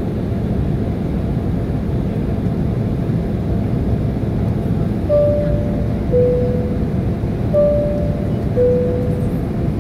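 Steady low jet engine and airflow noise inside an airliner cabin during the climb after take-off. A two-note cabin chime, high then low, sounds twice, about five and seven and a half seconds in, signalling a cabin crew announcement.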